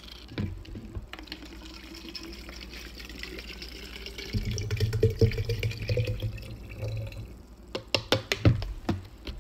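Water poured from a plastic bottle into a wide-mouth Nalgene bottle, splashing as it fills, with a tone that rises in pitch as the bottle fills. A few sharp crackles come near the end.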